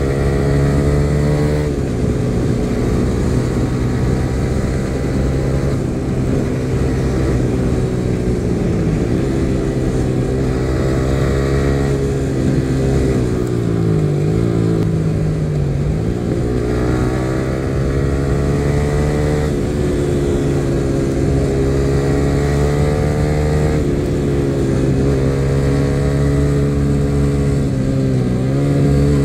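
Yamaha R15 V3's 155 cc single-cylinder engine running under load as the bike is ridden at speed. Its pitch dips and climbs back several times as the throttle is eased and reopened, with the deepest dip around the middle.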